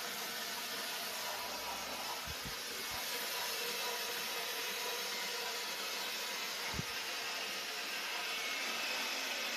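Steady hiss with a faint hum, with three soft low thumps a little over two seconds in and one more near seven seconds.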